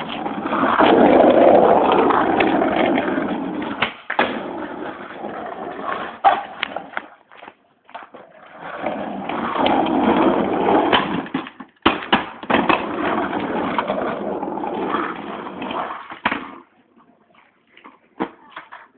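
Skateboard wheels rolling in three long runs, broken by gaps and by several sharp clacks.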